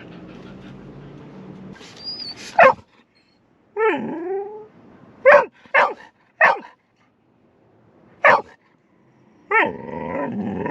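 Golden retriever barking and whining with impatience: single sharp barks about two and a half seconds in and again around five, six and eight seconds. Between them come a whine that swoops down and up, and near the end a longer, rough whining yowl.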